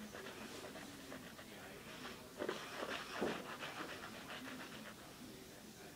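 A person breathing hard and fast through the nose, mouth sealed shut around a mouthful of Listerine mouthwash, in short quick breaths with a few louder puffs, strained against the burning sting of the mouthwash.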